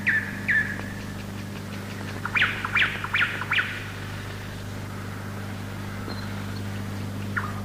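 A bird calling in short sliding chirps: a couple at the start, a quick run of four or five about two to three seconds in, and a few more near the end. A steady low hum runs beneath.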